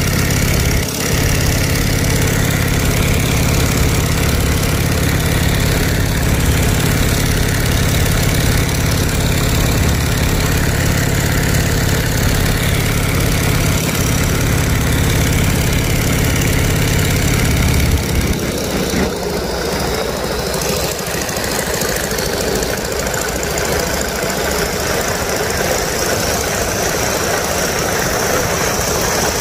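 Boeing Stearman biplane's radial engine and propeller droning steadily in flight, mixed with wind rushing through the open cockpit and rigging. About two-thirds of the way through, the deep engine note drops away sharply, leaving the wind rush and a higher engine sound.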